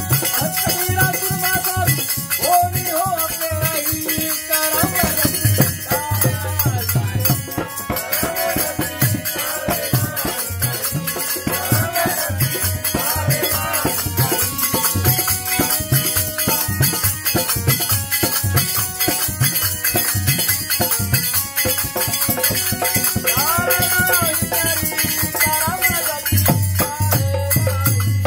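Devotional kirtan music: voices singing over a harmonium, a hand drum and a fast, continuous jingle of small hand cymbals and a tambourine. The music stops abruptly at the very end.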